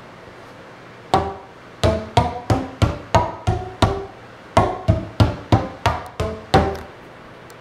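Homemade flip-flop-aphone: a flip-flop slapped on the open ends of 1-inch PVC pipes, each cut to length to sound one note of a G major scale (G A B C D E F# G). About fifteen sharp, pitched slaps come at roughly three a second, changing note from slap to slap, with a short pause about halfway.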